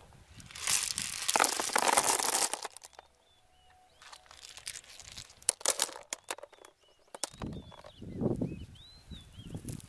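A batch of pond shells dropping and rattling into a wicker basket for about two seconds, followed a few seconds later by a few sharp clicks of shells knocking together and a softer rustle near the end. A bird chirps faintly.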